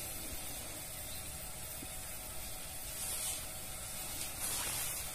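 Quiet rustling and scratching of hands handling fishing line and a tiny hook close to the microphone, over a steady faint hiss, with a few short scratchy hisses in the second half.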